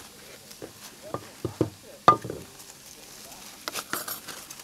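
Aluminium foil crinkling as it is unwrapped from a cooking pot, with a few clinks and knocks. The loudest, a short ringing clink, comes about two seconds in.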